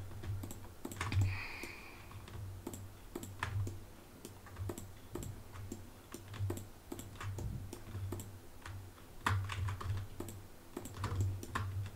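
Computer keyboard keys and mouse buttons clicking irregularly as modifier keys are held and loops are clicked in turn.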